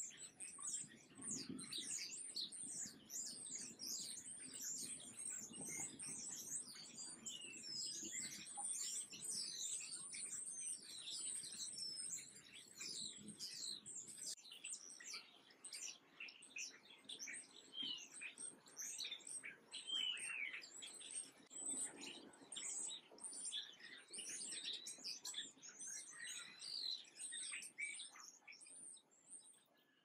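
Small songbirds chirping and twittering: a dense, unbroken stream of short, high notes from many birds at once. It fades out at the very end.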